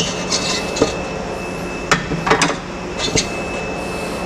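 A few scattered metal knocks and clanks from a steel tyre-changer bar being handled and set aside while a motorcycle tyre is moved on its rim. They sit over a steady low hum and a faint high steady tone.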